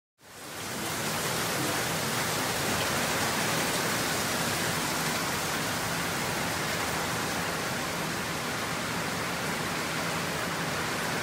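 Steady rain falling at night, a dense, even hiss that fades in within the first second and holds steady.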